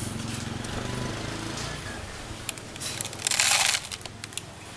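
A motor vehicle engine running, its low hum fading out after about a second and a half, followed by a few light clicks and a short loud hiss-like burst of noise about three and a half seconds in.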